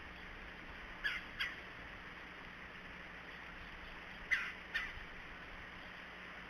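Red-bellied woodpecker calling: four short calls in two quick pairs, about three seconds apart, over a steady hiss.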